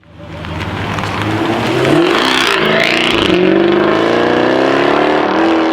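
Jaguar F-Type R's supercharged V8 through a Larini straight-pipe exhaust, accelerating hard: the revs climb, dip once about three seconds in, and climb steadily again.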